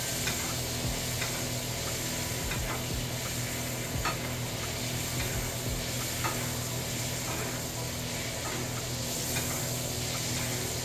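Filet mignon sizzling steadily in a hot pan, with a few faint clicks of a utensil against the pan and a steady low hum underneath.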